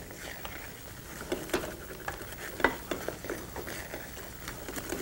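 Wooden spoon stirring and scraping a thick paste of chickpea flour (besan) toasting in butter in a heavy-bottomed pan, with the butter sizzling. It is irregular scrapes and taps, a few louder than the rest. The constant stirring keeps the flour from sticking and scorching on the bottom as it darkens for laddu.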